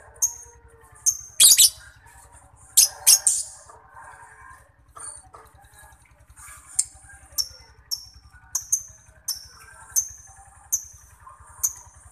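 Lovebird singing: a few loud, shrill screeches in the first few seconds, then a regular run of short, high chirps that fall in pitch, under a faint steady low hum.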